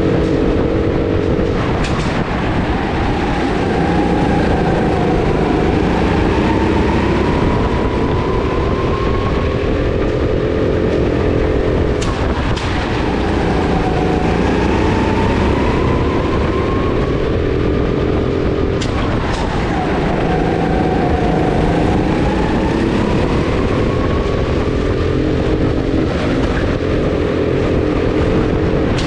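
Onboard sound of a Sodikart rental go-kart at racing speed, its motor's pitch climbing on the straights and dropping back into the corners several times. A few short sharp knocks are heard, about a third and two-thirds of the way through.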